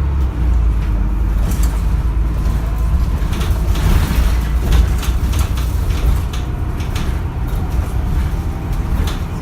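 Interior of a London double-decker bus on the move: a steady low engine and road rumble, with rapid rattling clicks from the bodywork and fittings, busiest in the middle of the stretch.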